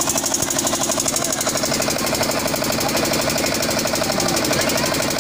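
Drums beaten in a fast, even roll of about eight strokes a second, loud and unbroken.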